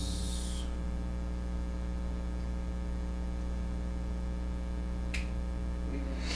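Steady electrical mains hum with its overtones, with a faint click about five seconds in and another near the end.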